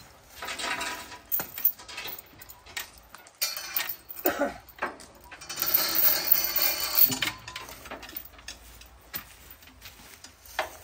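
Steel binder chain clinking and rattling against the log truck's load and frame as it is pulled through and hooked up to secure the logs. It comes in irregular bursts, with the longest and loudest rattle about halfway through.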